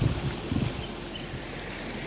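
Wind thumping on the microphone over a steady rush of running water, with two low thuds near the start.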